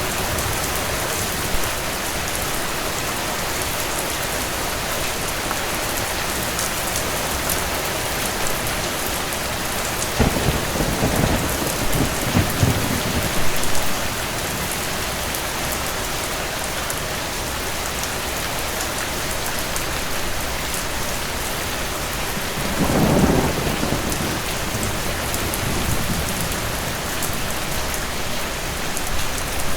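Steady rain with two low rolls of thunder, one about a third of the way in lasting a few seconds and a shorter one about three quarters of the way through.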